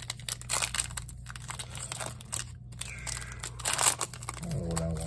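Foil Yu-Gi-Oh! booster pack wrapper crinkling and being torn open by hand, in a run of crackles and rips with the loudest tear a little before four seconds in.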